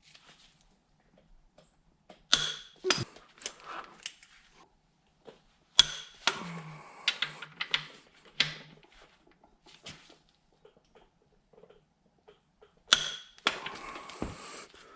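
Hand tools working on engine bolts: a dozen or so scattered sharp metallic clicks and clanks at irregular times, with a couple of short stretches of rattling.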